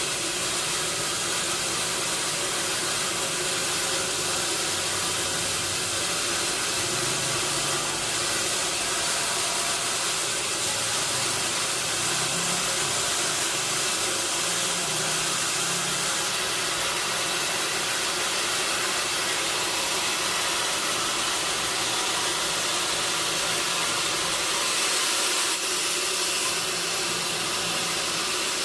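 Sawmill machinery running steadily: a continuous loud hissing noise with a steady hum underneath.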